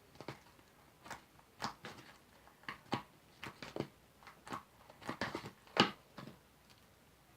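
Homemade glue-and-soap slime being kneaded and squeezed by hand, giving irregular short sticky squelches and pops, the loudest a little before the end.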